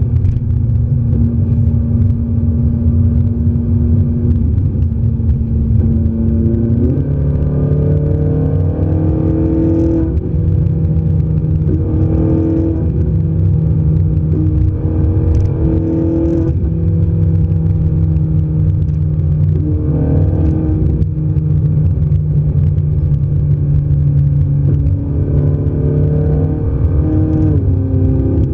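Ferrari 458 Italia's 4.5-litre V8 heard from inside the cabin at road speed: a steady low drone with tyre and road noise, the engine note rising and falling several times as the throttle and revs change.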